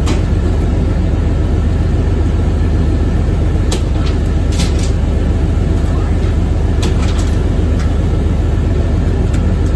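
Fishing boat's engine running steadily with a low drone, with a few brief sharp clicks over it.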